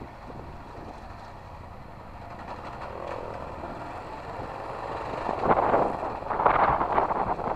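Motorcycle riding at low speed, its engine running under a steady rumble, heard through a helmet-mounted microphone. From about five seconds in, rough rushing noise surges in and the sound grows louder.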